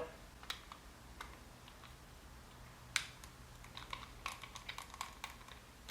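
Faint, scattered small clicks and taps of a screwdriver and wires at the terminal screws of an old thermostat's wall plate as the wires are unscrewed, with a sharper click about three seconds in and a quick run of clicks near the end.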